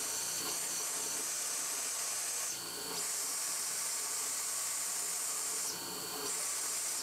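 CNC mill end-milling an aluminium block with a 1/4-inch three-flute cobalt end mill under an air blast: a steady hiss of air and cutting with a thin, high, steady whine beneath it. The hiss dips briefly twice, about two and a half seconds in and again near six seconds.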